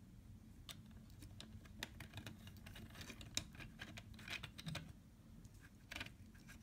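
Faint, irregular clicks and taps of hard plastic robot-arm parts being handled and fitted, as a universal joint assembly is slid into its tube on the base.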